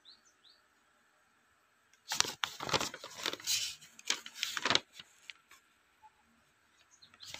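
Paper pages of an instruction manual rustling and crackling as they are handled and turned, for about three seconds.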